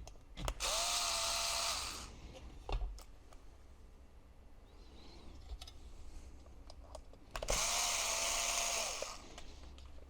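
Small electric screwdriver running in two short bursts, its motor spinning up and winding down each time, backing screws out of a laptop-style hard drive's metal mounting bracket. Light clicks and handling of small parts between the bursts.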